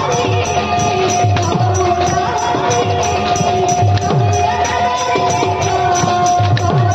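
Kirtan music: a drum plays deep bass strokes that slide down in pitch, over a steady held note and rhythmic jingling cymbals.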